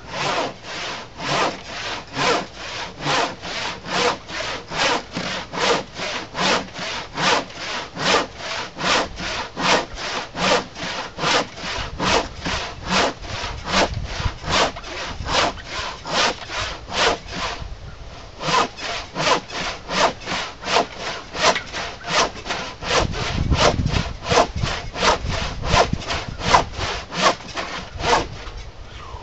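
Handsaw crosscutting through a thick glued-up wooden workbench top, cutting it to final length: steady rasping strokes about two to three a second, with one short break partway through, stopping near the end.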